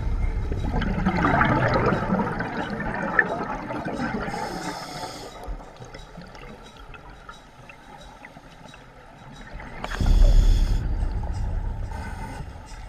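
Scuba diver's exhaled breath bubbling out of the regulator, heard underwater through a GoPro housing: one long gurgling surge of bubbles at the start, a quieter stretch, then a second exhalation about ten seconds in, each preceded by a brief hiss of the regulator.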